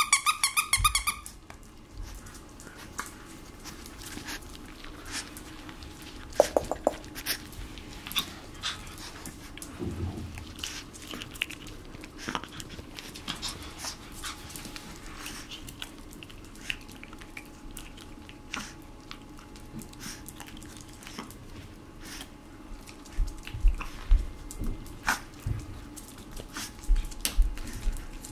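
A plush hamburger dog toy's squeaker squeezed by hand, a wavering squeak lasting about a second. A puppy then plays on a hard floor: scattered clicks and taps of its claws and of a chew stick, with a few low thumps near the end.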